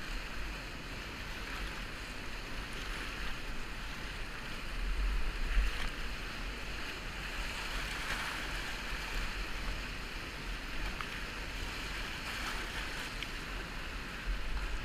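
Rushing whitewater of a Colorado River rapid at about 1200 cfs, a steady roar of breaking waves around a kayak running through it, with a low rumble underneath. It swells louder for a moment about five and a half seconds in.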